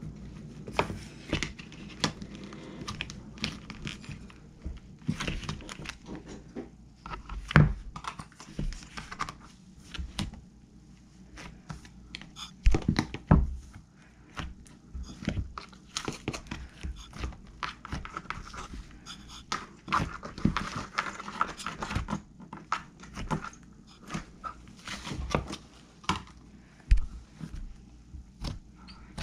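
Handmade slime being squeezed, stretched and poked by hand, making irregular sticky pops, clicks and crackles, with a few louder pops along the way.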